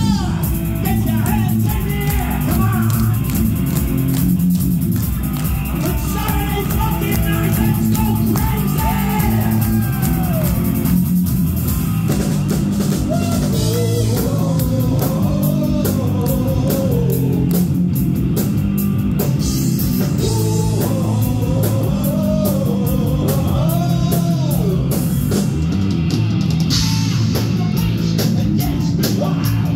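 Heavy metal band playing live at full volume: distorted electric bass and guitar over a drum kit, with a lead line of bending, wavering notes on top.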